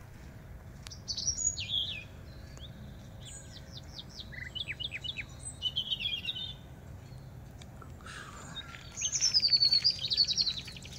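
Birds chirping and singing in short phrases of high chirps, sweeps and trills, the loudest phrase near the end.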